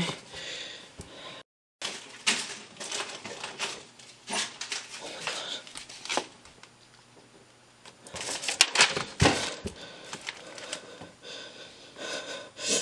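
A ballpoint pen writing on paper against a hard tabletop, in quick scratchy strokes and taps, with paper rustling. There is a short dropout to total silence about a second and a half in, and a quieter stretch of a couple of seconds past the middle.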